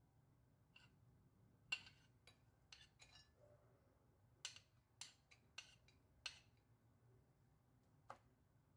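Faint light clinks and taps, about a dozen scattered irregularly, as sliced red onion is dropped onto a ceramic plate of dried anchovies.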